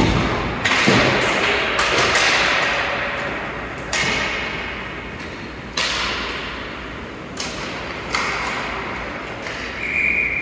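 Ice hockey play: a series of sudden thuds and knocks, each followed by a scraping hiss that fades over a second or two, like pucks, sticks and bodies hitting the boards and skates scraping the ice.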